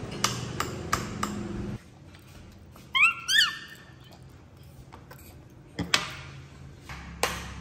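Baby macaque giving two short, high squeaky calls about three seconds in, each rising and then holding. Sharp clicks and taps, like tableware or hard things knocked on a glass tabletop, come before and after.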